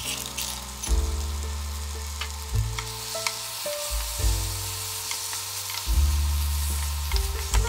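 Marinated meat and vegetables sizzling in a frying pan while a wooden spatula stirs them, with scattered clicks of the spatula against the pan.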